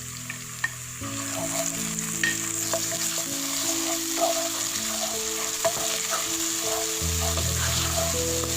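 Food sizzling in hot oil in a cooking pan while being stirred, a steady frying hiss with occasional sharp clicks.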